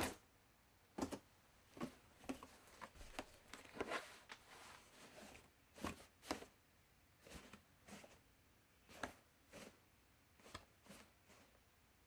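Laundry basket being handled: a quiet, irregular series of short knocks, taps and brief rustles, bunched together in the first few seconds and then spaced out by short pauses.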